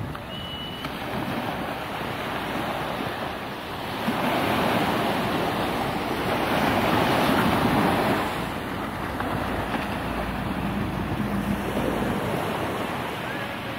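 Small surf breaking and washing up a sandy beach, mixed with wind on the microphone; the rush of the waves swells louder about four to eight seconds in.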